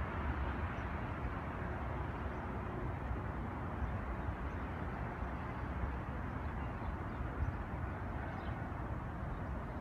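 Steady outdoor city ambience: a constant hum of distant traffic with a low, uneven rumble underneath.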